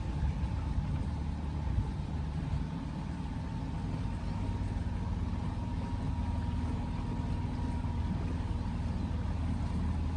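Small sightseeing boat's outboard motor running steadily under way: a low engine hum with a faint high whine held at one pitch.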